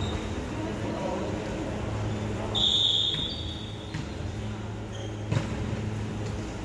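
Volleyball being played in a sports hall over a steady low hum. One short high squeak comes a little under three seconds in, and a sharp smack of a hand hitting the volleyball comes a little after five seconds.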